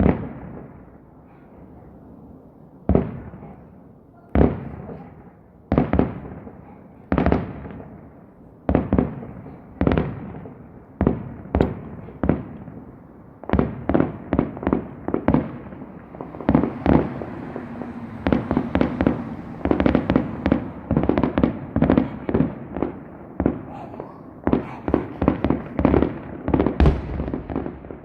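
Aerial firework shells bursting: sharp booms with echoing tails, about one every second and a half at first, then coming faster and overlapping in a rapid barrage through the second half.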